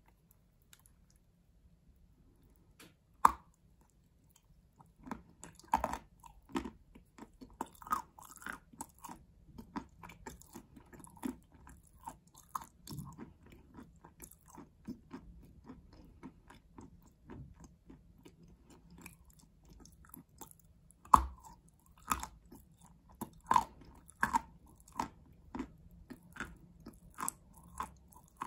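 Close-up crunching of a chunk of edible white chalk dipped in a bowl of paste: a sharp bite about three seconds in, then continuous crisp crunchy chewing with more loud bites, the loudest about twenty-one seconds in.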